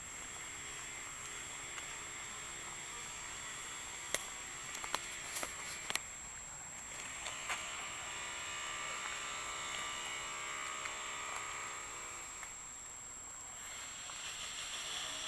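Outdoor street ambience: an even hiss that swells and fades twice, with a few sharp clicks about four to six seconds in and a constant thin high-pitched whine.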